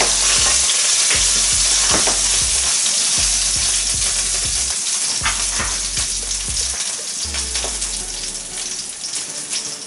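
Tomato, garlic and chilli sauce sizzling in hot olive oil in a wok, a steady frying hiss that slowly dies down toward the end, with a few short knocks.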